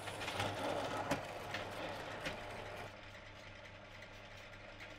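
Silverline bench pillar drill running with a steady motor hum while its bit drills through cement board, with a gritty cutting hiss. The cutting is louder for about the first three seconds, then the drill runs on more quietly.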